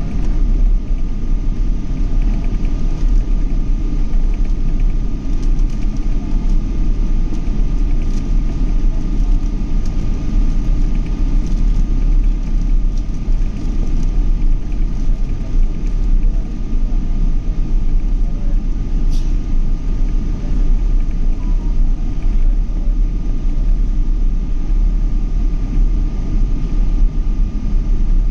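Boeing 777 jet airliner in flight, a steady low rumble of engines and airflow with a thin constant whine above it.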